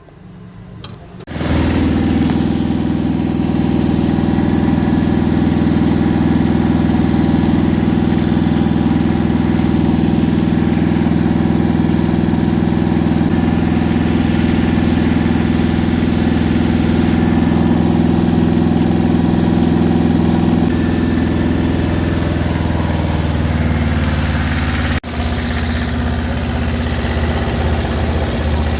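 Car engine starting about a second in, then idling steadily; the idle settles slightly lower a few seconds before the end.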